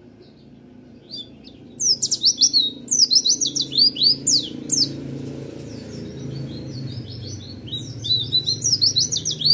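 A caged white-eye (pleci) singing in fast rolling runs of high, steeply falling whistled notes, the rapid 'roll tembak' style. The song starts about two seconds in, eases to softer notes midway and picks up again near the end.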